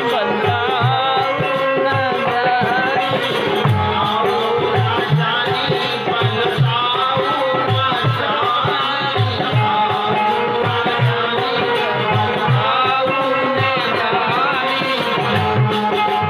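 Indian folk devotional music: a steady hand-drum beat with a shaker, under a wavering melody line.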